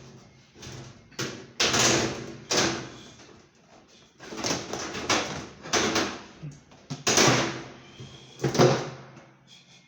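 Washing machine parts being handled during disassembly: about eight knocks and scraping bumps, irregularly spaced, each short.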